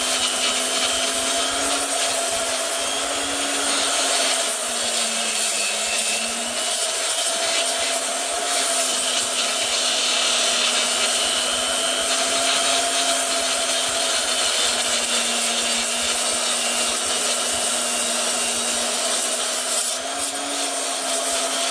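A grinder running continuously against steel, cleaning rust and scale back to bare metal to prepare it for welding. Its steady whine wavers slightly.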